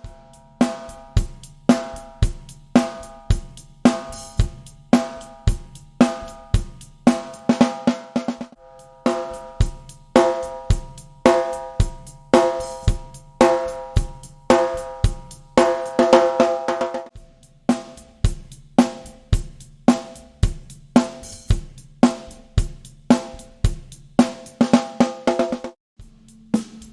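Drum kit playing a steady beat of bass drum, hi-hat and cymbals around a birch snare drum fitted with a coated Remo UT head, its backbeat strokes ringing. The playing stops for a moment near the end and picks up again.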